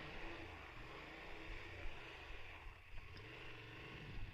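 Motorcycle engine running steadily, heard faintly as a low hum.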